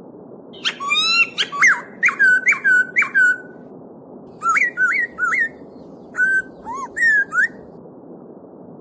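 A songbird singing loud, clear whistled phrases in three bursts over the steady rush of a babbling stream.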